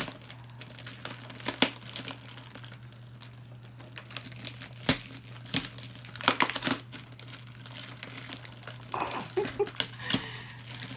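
Rummaging through a box of used plastic toys: rustling and crinkling, with several sharp clicks and knocks as toys are picked up and set down. A steady low hum runs underneath.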